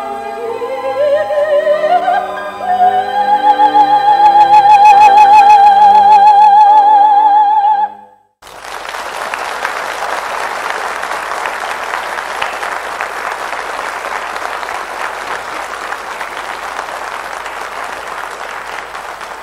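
A soprano singing with orchestra, her voice gliding up into a loud, long high note with vibrato that ends the piece about eight seconds in. After a short break, steady applause fills the rest.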